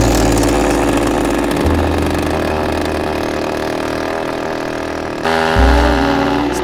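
Single-cylinder two-stroke chainsaw engine, about 3.5 hp, running hard as it drives a motorized longboard. Music with a low bass sits underneath and takes over again about five seconds in.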